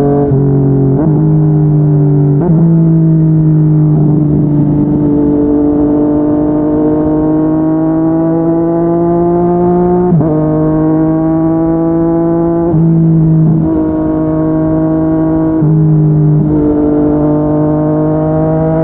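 Yamaha MT-09 three-cylinder engine through a Yoshimura R55 slip-on exhaust, pulling hard under acceleration. The note climbs steadily and drops sharply at each gear change, with about eight shifts; the longest pull climbs from about four seconds in to about ten seconds in.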